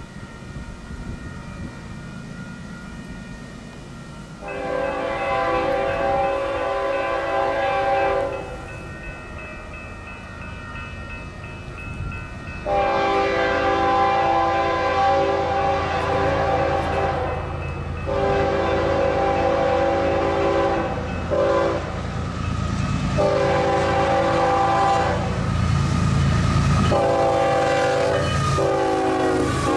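Union Pacific diesel locomotive's multi-chime air horn sounding a series of long blasts with one short blast, over the low rumble of the approaching locomotives, which grows louder.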